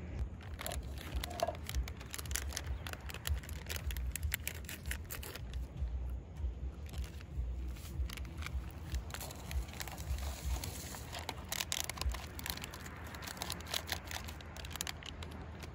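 Rustling and crinkling handling noise made of many small sharp crackles, over a steady low rumble.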